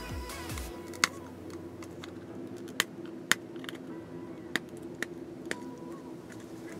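Sharp clicks and taps, about six spread over several seconds, from a plastic eyeshadow compact and its sealed packaging being handled and worked open. Soft background music runs underneath.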